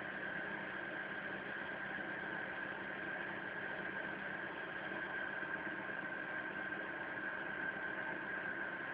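BMW 318i E46 four-cylinder petrol engine idling steadily, with an even high whine running through it.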